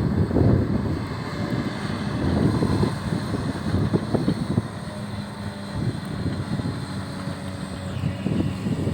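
XCMG XE215C excavator's diesel engine running steadily, with wind buffeting the microphone, heavier in the first few seconds.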